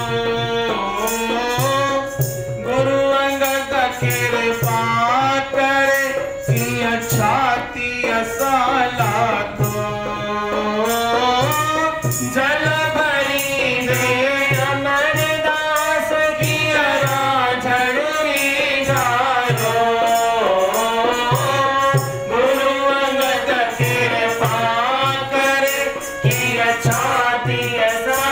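A man sings a Hindu devotional bhajan with gliding, ornamented melody, accompanied by harmonium. Under the voice runs a steady low drum beat with a light rattling percussion on the pulse.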